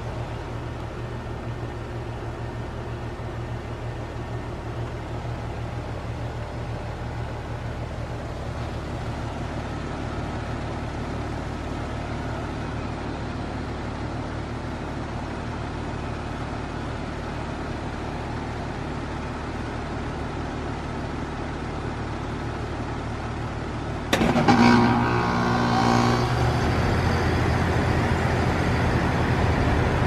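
Goodman GSZ14 heat pump outdoor unit running in defrost mode with a steady low hum. About 24 seconds in comes a sudden loud whoosh of refrigerant as the reversing valve shifts to end the defrost, and the unit then runs louder and steady.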